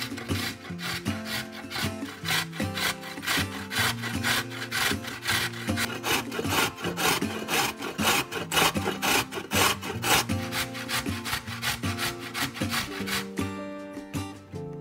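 Rhythmic rasping strokes of food preparation, about three or four a second, growing louder toward the middle and stopping shortly before the end, over soft guitar music.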